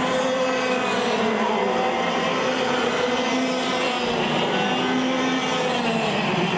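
Several two-stroke 125cc TAG racing kart engines buzzing around the circuit, their overlapping pitches rising and falling as the karts lift off and accelerate through the corners.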